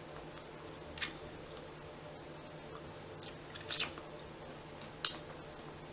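Snow crab leg shells being cracked and snapped open by hand: four or five short, sharp cracks spread over a few seconds, over a faint steady hum.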